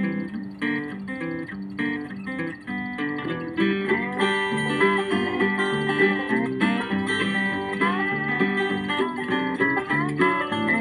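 Instrumental break of a country song: acoustic guitar strumming under a picked lead guitar melody, with no singing.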